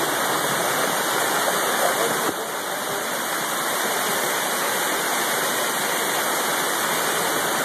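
Waterfall pouring over rock in a canyon: a steady, even rush of water.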